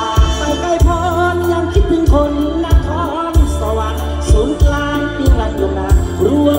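Live mor lam band music over a loud PA: a heavy bass line and a drum beat about twice a second under a wavering lead melody.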